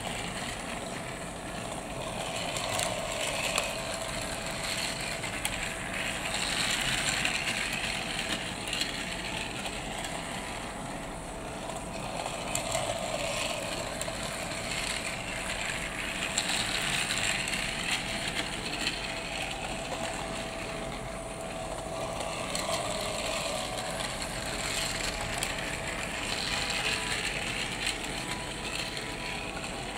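Fisher-Price Trackmaster motorized Fearless Freddie toy engine running on plastic track: a steady whirring gear motor with wheels rattling on the rails. It swells and fades every four to five seconds as the engine laps the layout.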